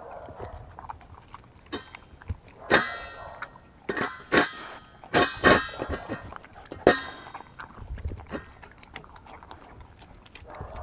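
Pit bull–German shepherd mix dog eating raw meat from a stainless steel bowl: irregular metallic clanks and clinks as its mouth knocks the bowl, with softer chewing between them.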